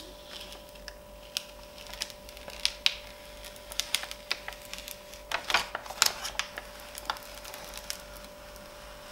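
Clear transfer tape being peeled slowly off a vinyl wall decal, crackling in scattered sharp clicks, with a denser run of louder crackles about five to six seconds in.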